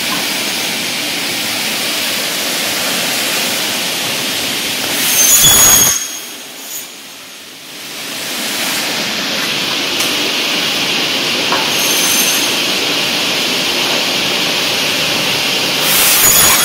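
Saw blades of an automatic aluminium profile cutting machine running, with two cuts through aluminium solar panel frame profiles, about five seconds in and near the end, each a brief loud screech with high ringing tones. Between them the sound dips for a couple of seconds and then builds up again.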